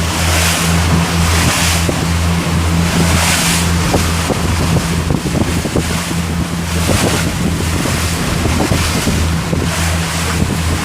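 A boat's engine running steadily under strong wind buffeting the microphone, with the rush of waves and spray swelling in surges every second or two.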